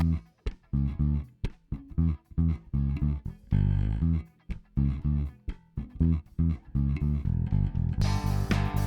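Lakland Skyline 44-64 GZ PJ four-string electric bass with passive EMG GZR-PJ pickups, recorded direct through a preamp set flat: a run of short, separated plucked notes that turns into a denser, brighter riff about eight seconds in.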